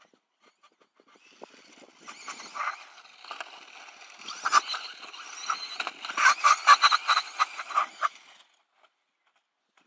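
Team C TC02 Evo 1/10 electric RC buggy with a brushless 3950KV motor driving hard over loose dirt: motor whine mixed with tyres on dirt and many sharp clicks and rattles. It comes in about a second and a half in, is loudest between about six and eight seconds as the buggy runs close by, and stops about eight and a half seconds in.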